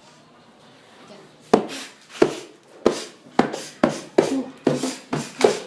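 A drum struck in a steady beat that starts about a second and a half in, with the strikes coming a little faster toward the end.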